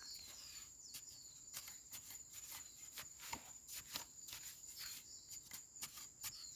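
Faint, irregular scrapes and knocks of a digging tool jabbing and prying in dry, clumpy soil, with a steady high insect drone behind.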